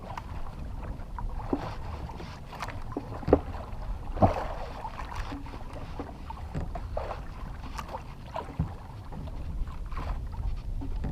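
Low rumble of wind and water around a small fishing boat at sea, with scattered short knocks and clicks, the sharpest about four seconds in.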